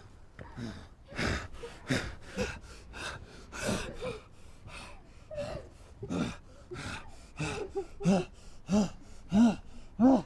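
A person gasping for breath in quick, hard breaths, about two or three a second, with short strained groans that come more often and louder near the end.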